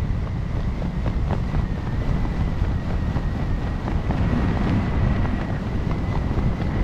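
Airflow buffeting a helmet camera's microphone during descent under an open parachute canopy: a steady, fluttering low rush of wind, with a faint steady high tone over it.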